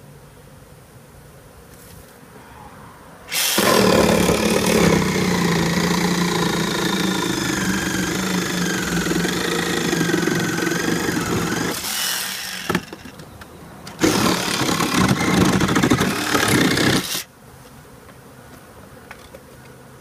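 Cordless handheld vacuum running against a bee-covered wall, sucking up honey bees: it runs for about nine seconds with a wavering whine, stops, then runs again for about three seconds. Quieter bee buzzing around it.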